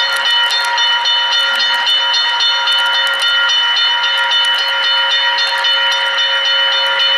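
Model railroad freight train of hopper cars rolling by, its wheels clicking over the rail joints, over a steady high-pitched whine.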